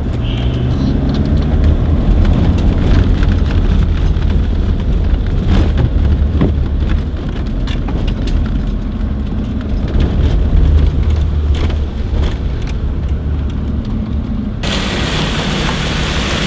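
Land Rover Discovery 2's Td5 five-cylinder diesel rolling slowly, heard from inside the cab: a steady low rumble with scattered ticks and crackles from the tyres on loose quarry stone. A brighter hiss suddenly joins near the end.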